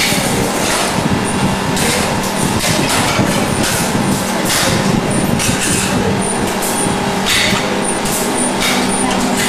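Loud, steady workshop machinery noise: a constant low hum under irregular clatter and knocks.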